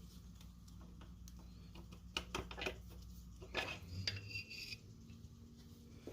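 Light metal clinks and taps of loose engine parts, the freshly pulled pistons and connecting rods, being handled and set down. There is a cluster of clicks about two seconds in, and more past halfway, one with a brief metallic ring.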